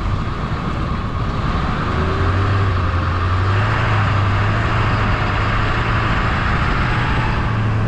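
Tow vehicle's engine and road noise while pulling a very large travel trailer: a steady drone whose low engine hum rises a little about two seconds in, then holds.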